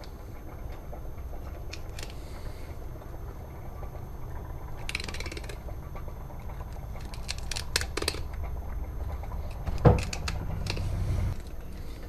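Knife cutting and scraping along a tuna on a plastic cutting board, with scattered small clicks and a sharp knock just before ten seconds in, over a steady low hum.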